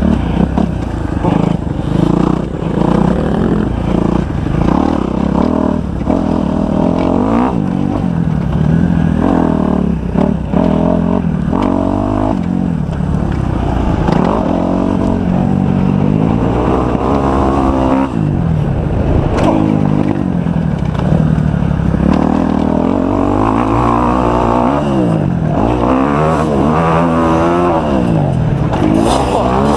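Kawasaki 250 motocross bike engine being ridden hard, its pitch rising and falling again and again as the throttle opens and closes and the gears change.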